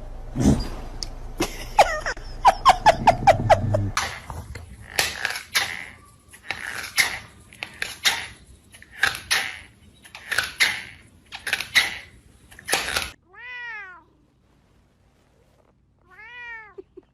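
A cat crying out again and again, roughly once a second, in loud hoarse calls, then two clear meows that rise and fall in pitch near the end. A few sharp clicks and a quick run of ticks come first.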